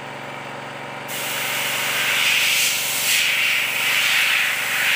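Small corded electric drill boring through a wooden batten into the wall behind it. It starts about a second in as a harsh hissing grind that surges unevenly.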